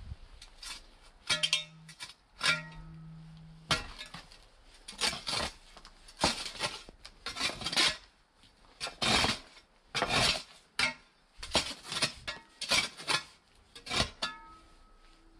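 Steel shovel digging by hand into stony soil: a string of chops and scrapes of the blade, about one a second. Twice within the first three seconds the blade strikes something metal and it rings briefly.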